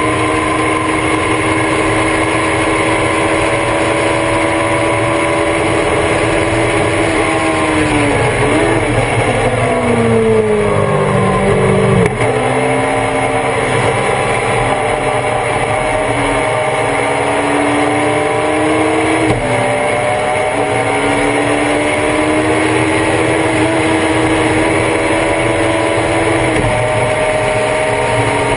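Thunder Roadster race car engine heard from on board under hard acceleration. Its pitch falls over a few seconds about a third of the way in as the car brakes and shifts down, then climbs again, with a sharp break in the pitch about two-thirds of the way through as it shifts up.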